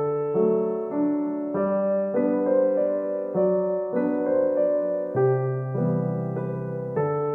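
Background piano music: a melody of single notes over chords, with the notes changing about every half second.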